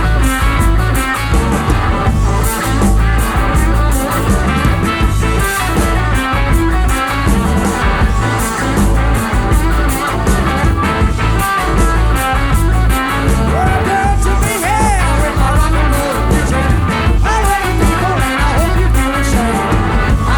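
Rock music with guitar over a steady, heavy beat.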